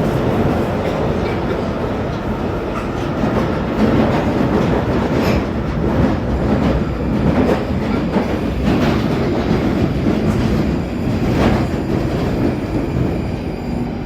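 London Underground Northern line 1995 Stock train running at speed through a deep-level tube tunnel, heard from inside the carriage: a loud, steady rumble with wheel clatter and a few brief sharp squeals from the wheels on the rails.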